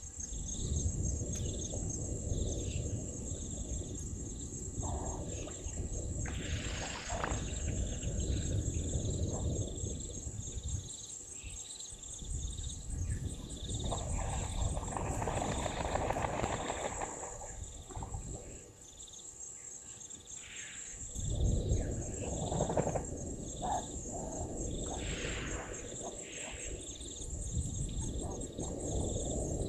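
A steady, high, pulsing chorus of insects runs throughout, with short repeated bird notes and stretches of low wind rumble on the microphone. About halfway through there is a few seconds of splashing as a bathing Egyptian goose beats at the water.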